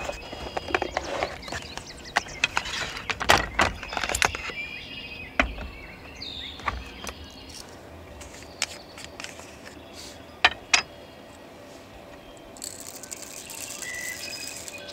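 Irregular clicks and knocks of things being handled, thickest in the first few seconds, with a sharp pair of knocks about ten and a half seconds in, and a few short bird chirps.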